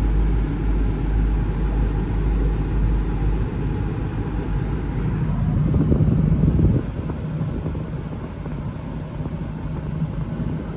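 2000 Land Rover Discovery idling with its air-conditioning blower running, a steady rumble and rush of air heard inside the cab. It swells for a couple of seconds around the middle, then drops suddenly to a slightly lower level.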